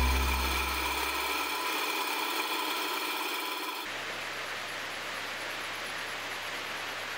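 Woodturning lathe running with a steady mechanical hum and whine, its low rumble fading over the first two seconds, cutting off about four seconds in. After that there is a soft, even hiss while a blade is honed by hand on a small stone.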